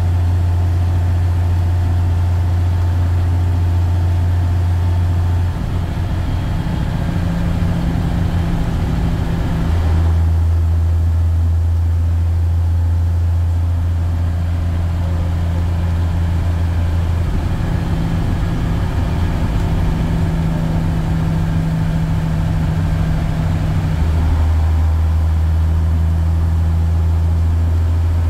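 Leyland Olympian double-decker bus's diesel engine running on the move, heard from inside the upper deck over road noise. Its low drone drops away and comes back twice.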